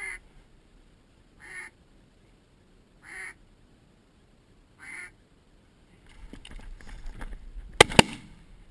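Duck quacks, one short quack at a time, four times at even spacing. Then a rustle of movement grows, and two shotgun shots crack in quick succession near the end.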